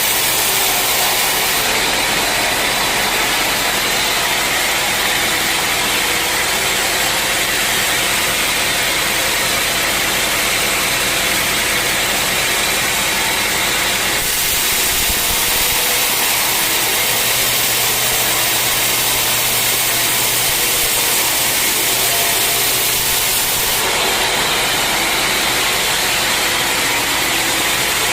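Sawmill saw running steadily through an acacia log, a continuous mechanical drone with engine noise. The tone shifts about halfway through and again near the end.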